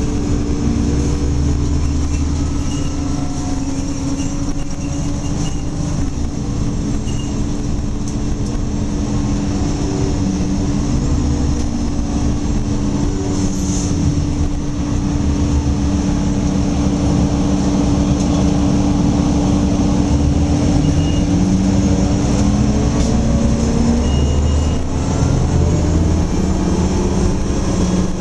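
Inside a 2009 Gillig Low Floor transit bus under way: the engine and drivetrain run steadily over road rumble, and the engine's pitch rises and falls several times.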